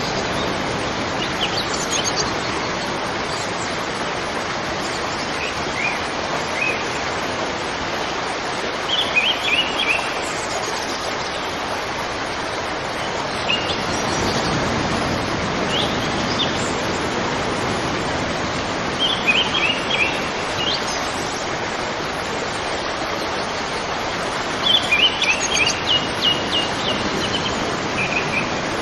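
River water rushing steadily over rocks. A bird chirps over it several times in short runs of quick repeated notes, the longest run near the end.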